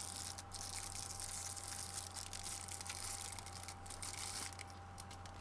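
Faint crinkling of a card pack's clear plastic wrapper, many small crackles, as a stack of football cards is pulled out of the torn-open 1991 Topps jumbo pack, over a steady low hum.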